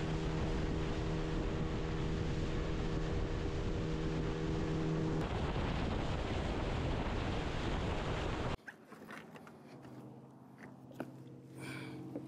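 Boat motor running with a heavy rush of wind and water while the boat is underway. The engine's hum fades out about five seconds in while the rush goes on, then the whole sound cuts off abruptly near the end, leaving a faint low hum and a few small clicks.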